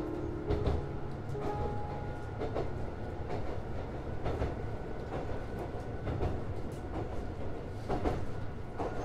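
Mizuma Railway electric train running along the line, heard from the driver's cab: a steady low rumble with irregular clacks and knocks from the wheels passing over rail joints.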